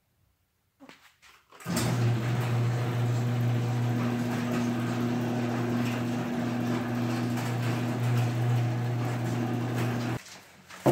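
Electric garage door opener raising the door: a steady motor hum with the rattle of the door rolling up its tracks. It starts about two seconds in, runs evenly for about eight seconds, and cuts off suddenly near the end.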